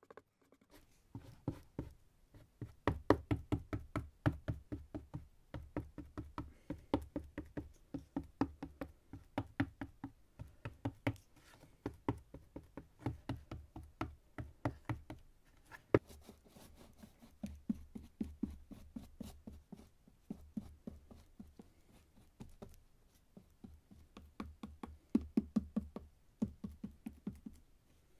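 Rapid light tapping on cardboard, about five taps a second, in runs with short pauses and one sharper knock about sixteen seconds in.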